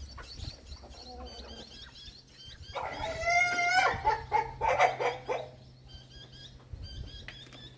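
Plymouth Rock rooster giving a loud, drawn-out squawk about three seconds in, then a few shorter broken calls, while it is held for a spur and claw trim. Quick high chirps repeat throughout.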